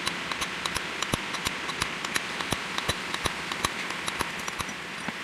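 Light metal-on-metal tapping, about four irregular strikes a second with a short metallic ring to each, as of a hammer working on a bearing, over a steady background hiss.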